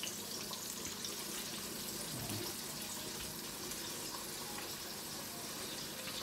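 Chicken pieces deep-frying in hot oil in a large pot, giving a steady sizzle.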